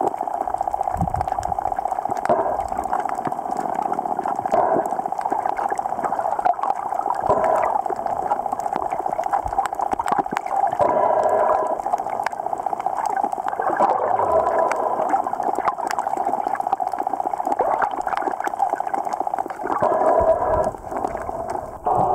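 Sound recorded underwater on a reef: a steady muffled hum with a fine crackle, broken every few seconds by louder gurgling bursts.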